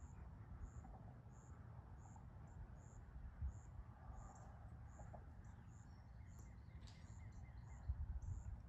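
An insect chirping high and faint, short even chirps about one and a half a second, over a low rumble.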